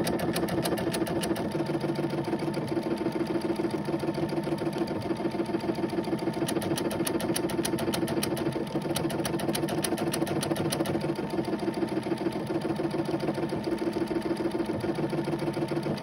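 Brother Innovis XV8500D sewing machine stitching a large decorative stitch pattern, its needle running in rapid, even strokes.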